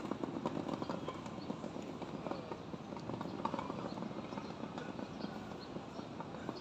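Outdoor background noise with many scattered light clicks and taps, irregular rather than rhythmic.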